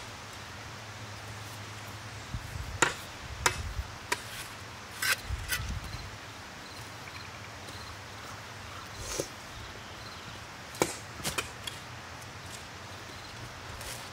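Spades chopping into lawn turf and soil, cutting a trench: scattered sharp cuts and scrapes at irregular intervals, over a low steady hum.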